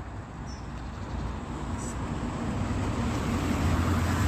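A car approaching and driving close by, its engine hum and tyre noise growing steadily louder.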